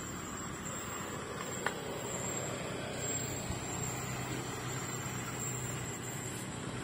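Diesel locomotive of an arriving passenger train running as it draws into the station, a low steady engine hum coming in about two seconds in over a steady background hiss. A single sharp click sounds about a second and a half in.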